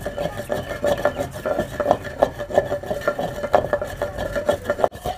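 Long wooden pestle grinding fennel seeds and green cardamom in a clay kundi mortar, a steady run of scraping and knocking strokes several times a second as the seeds are worked to a powder for sardai.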